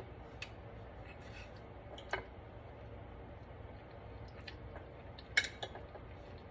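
Knife and fork clicking against a plate as a cutlet is cut for tasting: a few light, separate clinks, the loudest about five seconds in.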